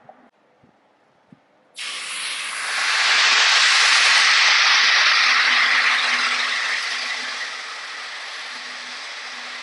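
Compressed air rushing through a Leslie RS-3 three-chime locomotive horn that fails to sound properly, the sign of a dud horn. The loud hiss bursts in about two seconds in, swells, then eases off and holds steady, with only a faint low tone wavering underneath.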